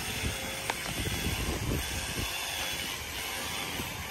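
Gas-powered leaf blower running steadily, a continuous rushing blast of air over a rumbling engine.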